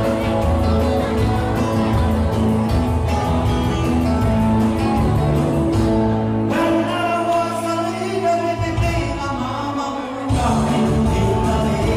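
A man singing into a microphone over amplified backing music with a strong, steady bass. The bass drops out for about four seconds past the middle, then comes back.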